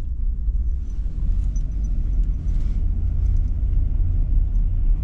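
Steady low rumble of road and drivetrain noise heard inside the cab of a 2024 Ford F-350 Super Duty with the 7.3-litre gas V8, cruising at road speed.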